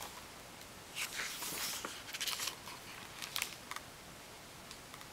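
Pages of a hardcover picture book being turned and smoothed flat by hand: a few short papery rustles starting about a second in.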